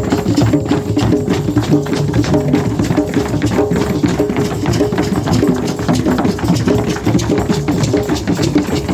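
Shamanic ritual drumming: fast, steady drum strikes in a continuous driving rhythm, drummed to call the rain.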